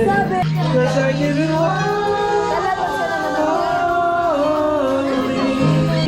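Music with singing: a sung melody that glides between held notes over a steady bass line.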